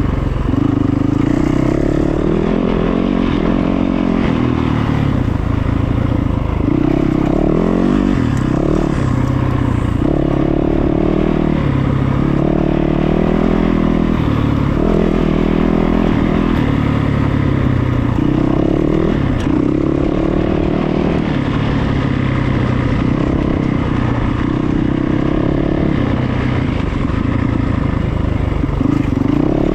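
Dense frog chorus: many frogs calling continuously in a loud, overlapping drone, with pitched calls swelling and fading every few seconds.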